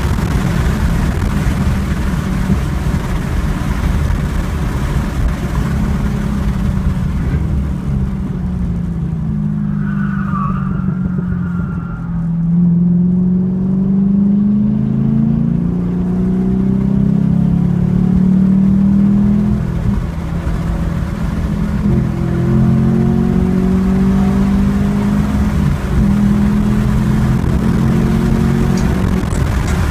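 Chevrolet Camaro SS 1LE's V8 engine at full throttle, heard from inside the cabin. About a third of the way in it eases off under braking for a slow corner, with a brief tyre squeal. It then pulls hard again with rising pitch, changing up a gear about two-thirds of the way in and climbing again.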